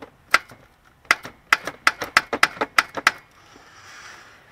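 About a dozen sharp hammer taps on metal at the alternator and its mounting. One tap comes early, and the rest follow quickly over about two seconds. A soft hiss follows near the end.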